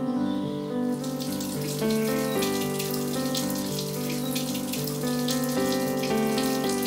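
Background music of held chords, with water running and splashing at a sink starting about a second in.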